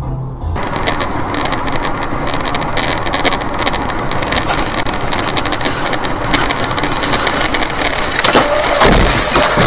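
Dashcam recording from inside a moving car: steady road and engine noise with a dense crackle over it. About nine seconds in there is a louder heavy thump, and a steady tone starts around the same time.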